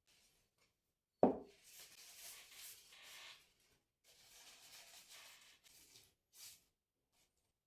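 Handling noises from cleaning an AR-15 rifle: a sharp knock about a second in, then two stretches of soft, hissing rubbing a few seconds each, and a short rub near the end.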